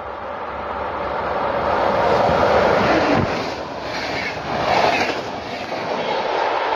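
Locomotive-hauled passenger train passing at speed on the near track: the rush of its approach swells to a peak, a tone drops in pitch about three seconds in, then the coaches run past with a steady rushing rattle.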